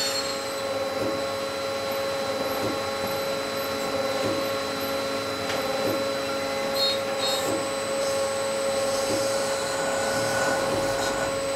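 CNC multi-spindle automatic lathe running: a steady mechanical whine made of several fixed tones, with a faint pulse about once a second.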